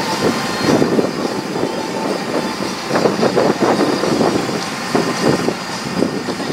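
Off-road 4x4 crawling along a rutted snow trail: the engine runs under load, with irregular surges of noise as the truck rocks through the ruts.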